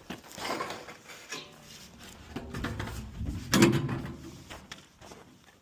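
Handling and scraping noises, then a low rumble that builds into a single loud knock about three and a half seconds in.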